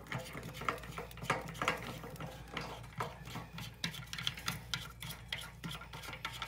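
Fill-valve mounting nut being turned by hand against the underside of a toilet tank: a run of irregular light clicks and scrapes.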